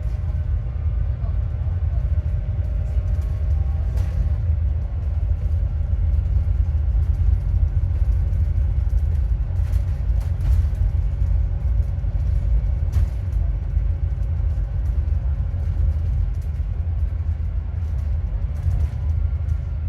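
Alexander Dennis Enviro400MMC double-decker bus under way, heard from inside: a steady low engine and road rumble with a steady whine above it, which the uploader puts down to a bad alternator. A few short rattles are heard over it.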